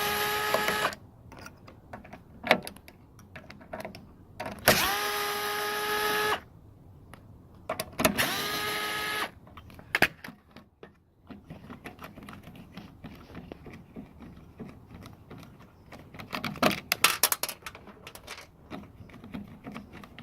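A small power driver with an 8 mm socket runs three times, each run climbing quickly in pitch and then holding for one to two seconds, as it spins out the three bolts of a Briggs & Stratton mower's air-filter housing. Loose clicks and rattles of bolts and metal parts being handled follow.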